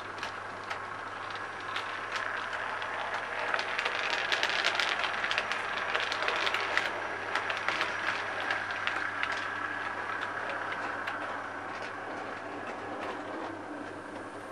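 OO gauge model train running past on the layout's track: a steady whine with rapid clicking of the wheels on the rails, growing louder through the first half and then fading as it draws away.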